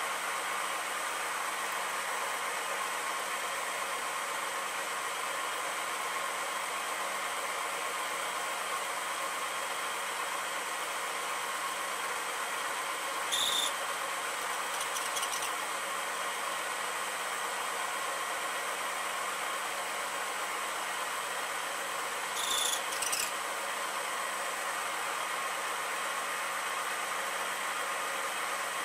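Bridgeport milling machine running with a steady hum as its spindle turns a pointed centre over the work. Twice, about 13 and 22 seconds in, there is a brief high squeak. The squeak comes when the spinning point is brought down a bit too low into the work's centre hole and rubs.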